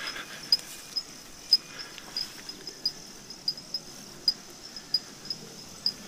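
Insects chirping: a steady high trill with sharper short chirps about twice a second, unevenly spaced.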